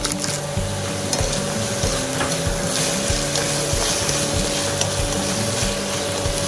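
Spinach and sliced shiitake mushrooms sizzling steadily in a nonstick pan, with scraping and tossing from a plastic slotted spatula as they are stir-fried.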